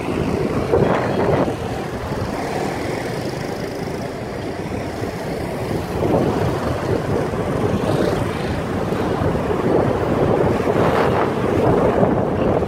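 Wind buffeting a camera microphone held out of a moving car's window, with the car's road noise underneath; the rushing rises and falls in gusts.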